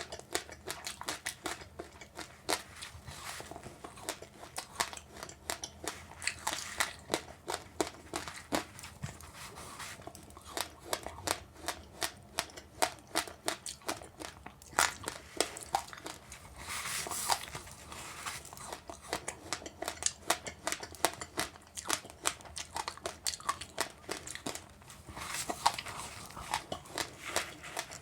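Close-up crunching and chewing of passionfruit pulp and seeds with sesame seeds: a dense, irregular run of sharp little cracks and crackles, thicker in a few spells.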